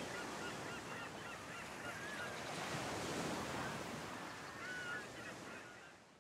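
Gulls calling in clusters of short, curved cries over a steady wash of surf and wind, fading out near the end.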